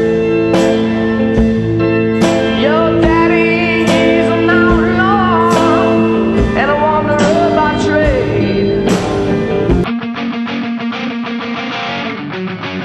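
Background music: a guitar song with a gliding melody line, changing about ten seconds in to quick strummed guitar.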